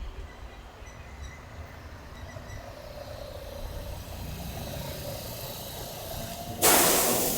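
Train approaching a station platform: a low rumble grows steadily louder, then about six and a half seconds in a sudden loud rush of noise as the train reaches the microphone.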